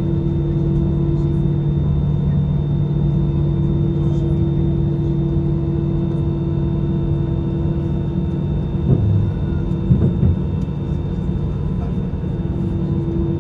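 Airbus A319 cabin noise over the wing: the jet engines running at taxi idle, a steady hum with a high steady whine, as the airliner rolls slowly along the taxiway. A few soft bumps come about nine and ten seconds in.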